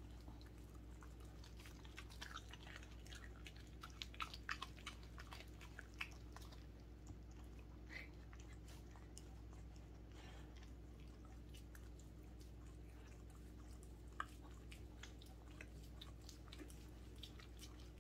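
Welsh corgi chewing and crunching into a whole raw chicken, bones and all: faint, irregular crunches and bites, thicker in the first several seconds and sparser later, over a low steady hum.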